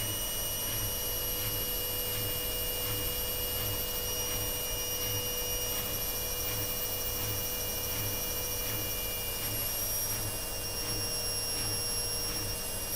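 Indesit WIDL146 washing machine running, a steady motor whine over a low hum that pulses at an even rhythm.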